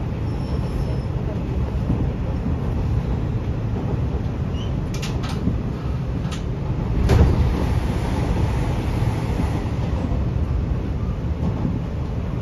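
Interior running noise of a Hanshin 1000 series electric train under way: a steady low rumble of wheels on track. About five to seven seconds in come a few sharp clicks, the loudest a knock near seven seconds.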